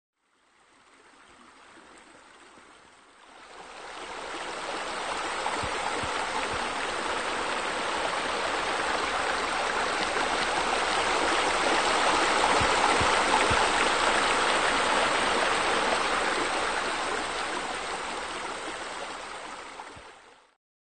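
Water rushing and splashing at a waterfall, a steady rush. It is fainter for the first few seconds and grows louder about three and a half seconds in, with a few faint low bumps in the middle.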